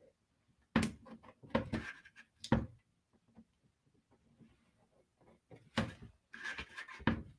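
A few sharp knocks and taps with two short rustling stretches as a felt pen and a one-penny coin are handled on a paper journal page on a table.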